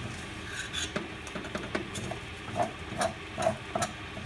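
Dishes and utensils being washed by hand: scattered, irregular light clinks and knocks.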